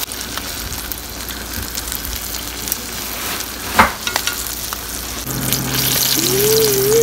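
Flour-coated fish frying in hot oil in a cast-iron skillet, a steady sizzle with a sharp knock about four seconds in. A steady low hum with a wavering higher tone over it joins near the end.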